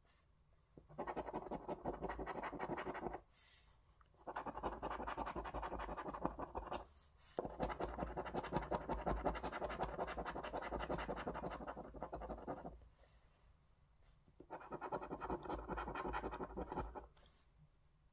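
A coin scratching the coating off a paper lottery scratchcard: four bursts of rapid back-and-forth strokes, the third and longest lasting about five seconds, with short pauses between them.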